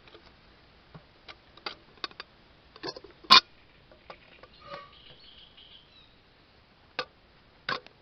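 A soot-blackened metal kettle being handled: its wire handle and lid clink and knock as it is lifted off a gas-canister camping burner and set down, with one loud knock about a third of the way in, a brief faint hiss in the middle and two more knocks near the end.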